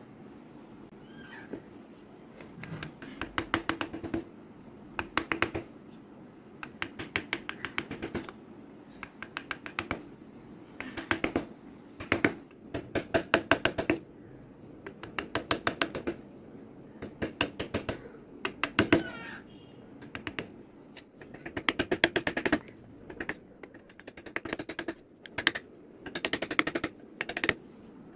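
Carving chisel cutting into a wooden relief, heard as short runs of rapid sharp clicking taps that recur every second or two.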